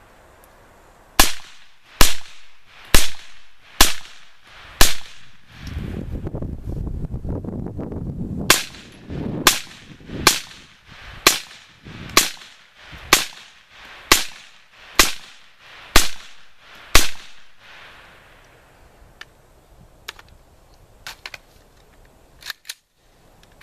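Miltac Alpha Series M-4 carbine, a 5.56 mm AR-15 fitted with a Surefire suppressor, fired semi-automatically. Five shots come about a second apart, then after a short pause ten more at the same pace, each a sharp crack with a short tail.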